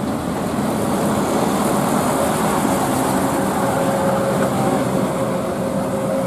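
Diesel dump truck with a tandem rear axle passing close by and driving away, its engine running steadily, with a hum of road noise; the loudness holds level throughout.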